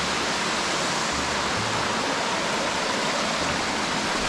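Steady rushing of a waterfall plunging into a rock pool, with stream water cascading over boulders.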